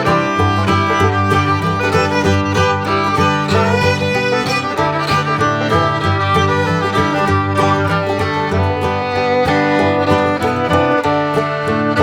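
Background music, an upbeat bluegrass-style tune with fiddle and plucked strings, playing at a steady level.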